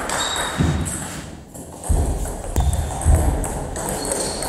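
Table tennis ball clicking off bats and table during a doubles rally, with low thuds of players' footwork on a wooden floor from about two seconds in.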